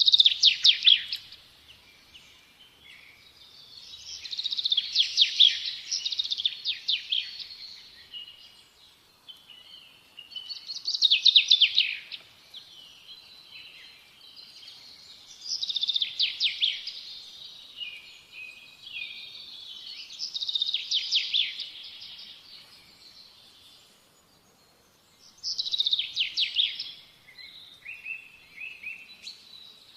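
Small songbirds chirping and singing in bursts of rapid, high chirps and trills that come about every five seconds, with softer chirps in between.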